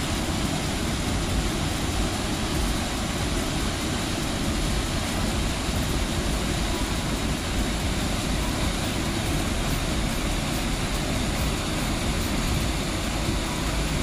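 Small waterfall pouring through a narrow rock channel into a pool, a loud, steady rush of falling water.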